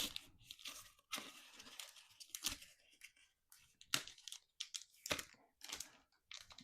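Foil Pokémon booster pack wrappers being torn open and crinkled by hand: a series of irregular rips and crackles.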